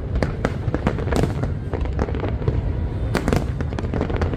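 Dense barrage of aerial fireworks: many overlapping bangs and crackles, several a second, over a continuous low rumble.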